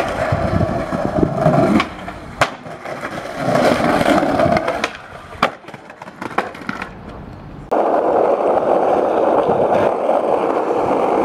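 Skateboard wheels rolling over pavement, with sharp clacks from the board popping and landing. About two-thirds of the way through, a steady, louder rolling begins.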